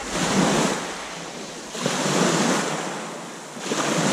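Small waves washing onto a beach, three swells about two seconds apart.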